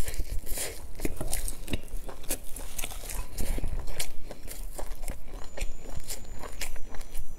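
Close-miked chewing and biting of crusty baked food: irregular crisp crunches and wet mouth clicks, several a second.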